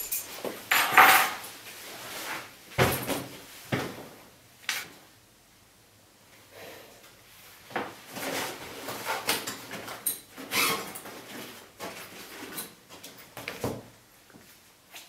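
Irregular knocks, clinks and rustles of things being handled at a kitchen table: keys put down on the tabletop and a wallet pulled out of a bag.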